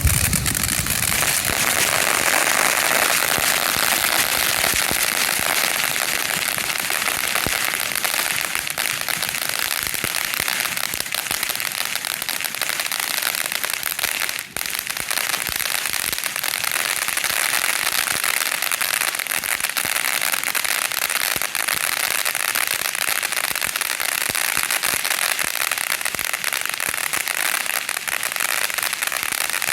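Fireworks crackling continuously: a dense, rapid crackle of countless small pops at a steady level, with a brief dropout about halfway through.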